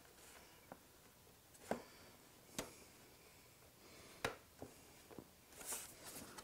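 Faint, scattered clicks and taps of snap-in plastic fairing pieces on a Gen 2 Suzuki Hayabusa being worked by hand into place, about half a dozen over several seconds.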